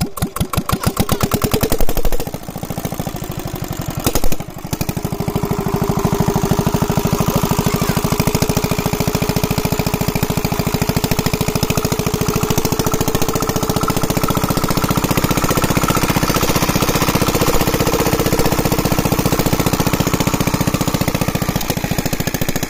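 Small single-cylinder diesel engine of a shallow tube-well irrigation pump running in a fast, even rhythm of firing beats. The sound breaks and changes abruptly about two and four seconds in, then settles into a steady run.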